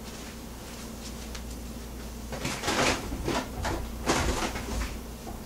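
Someone rummaging through household storage, with a cluster of knocks and rustles starting about two seconds in and lasting a couple of seconds, over a faint steady low hum.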